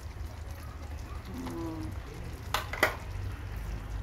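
A pan of chicken in coconut-milk sauce simmering on the stove, with faint bubbling over a steady low hum. About two and a half seconds in come two brief knocks a quarter of a second apart, the second the loudest sound.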